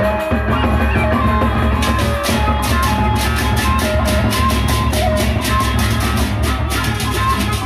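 Sasak gendang beleq gamelan playing: the big double-headed gendang beleq drums beat under the held ringing tones of gongs. About two seconds in, cymbals join with fast, even clashing.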